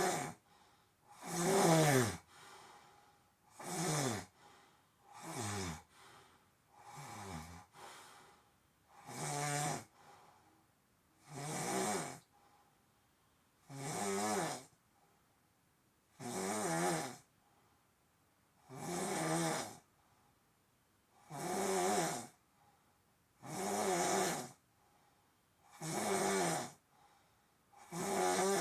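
Rhythmic snoring, about one snore every two and a half seconds, each a pitched, buzzing rasp separated by quiet breaths. A few of the snores in the first third are weaker, with a pitch that drops.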